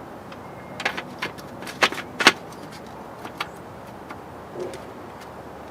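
A few sharp metallic clicks and clinks of hand tools and small ignition parts being handled during distributor reassembly, the loudest two about two seconds in.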